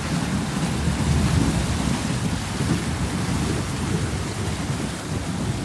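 Water churning and splashing around a Suzuki Jimny's wheels as it wades through a ford, over a steady low rumble.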